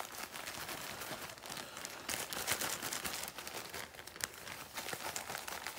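Plastic zip-top bag crinkling and rustling as fish pieces are worked around inside it to coat them in seasoned cornmeal, an irregular crackle of many small crinkles.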